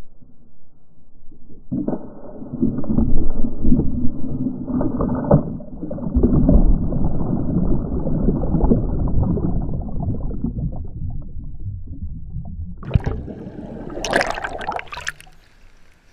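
Muffled underwater rushing and bubbling of pool water as the camera plunges in with a jumper. It starts suddenly about two seconds in and runs for several seconds, then fades. Near the end, bright splashing as the camera breaks the surface.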